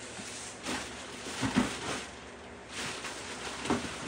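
Packaging rustling and crinkling as items are dug out of a cardboard box. It comes in several short bursts with a sharp knock or two; the loudest is about a second and a half in.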